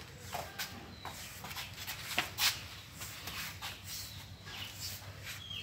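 Scattered short bird chirps, a few falling in pitch, among light clicks and knocks over a steady low hum.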